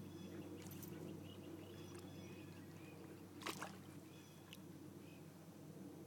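Faint water sloshing at the water's edge, with one short, sharp splash-like sound about three and a half seconds in.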